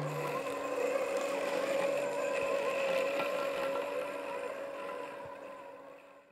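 Robotic lawnmower running with a steady, slightly wavering motor whine that fades out near the end.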